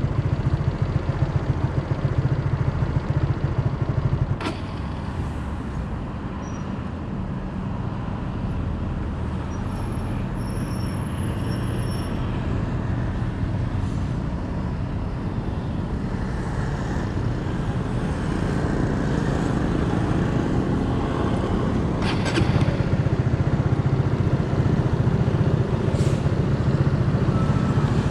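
City street traffic: vehicle engines running close by, louder for the first four seconds and again toward the end, with a few short clicks.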